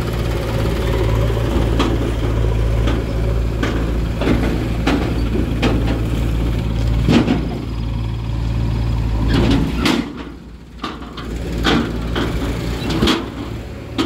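Backhoe loader's diesel engine running at a steady speed, with scattered knocks and clatters as it works. The engine sound drops away for about a second roughly ten seconds in, then comes back.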